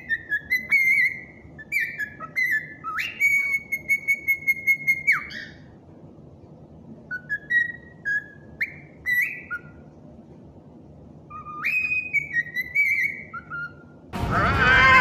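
Pet bird whistling a tune in phrases of clear notes that jump up in pitch, with one long held note. A louder, wavering sound takes over near the end.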